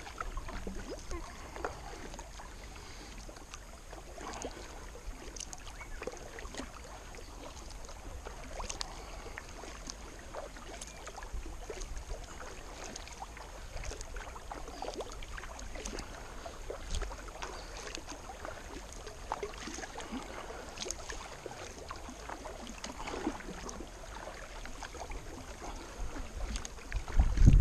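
Kayak paddling on calm river water: the double-bladed paddle dips and drips with light splashes as the hull glides along. A steady low rumble sits under it, and a much louder low rumble comes in near the end.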